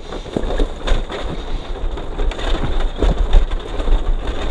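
Vehicle coasting with its engine off along a rough dirt track: tyres crunching and crackling over gravel, with a low rumble of wind on the microphone.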